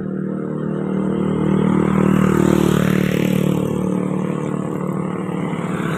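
Bus engine passing close by: a steady low drone that grows louder to a peak about two and a half seconds in, then eases off as it moves away.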